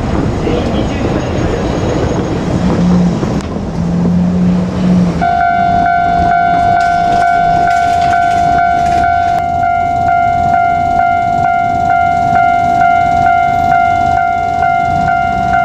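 A JR Kyushu 787-series train running past, a dense rail rumble. About five seconds in, a level-crossing warning bell starts ringing: a high electronic ding repeating evenly.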